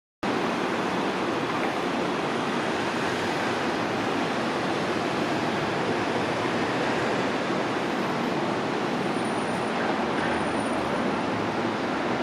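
Boeing 737 MAX 8's CFM LEAP-1B turbofan engines at takeoff power, a steady rushing jet noise that holds an even level.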